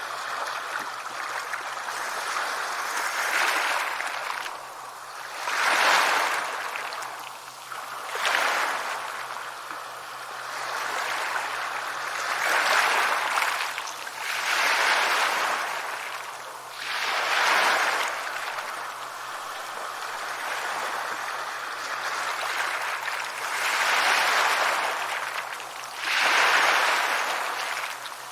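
Sea waves breaking and washing onto the shore, a rushing hiss that surges and falls back every two to three seconds, with a calmer stretch past the middle.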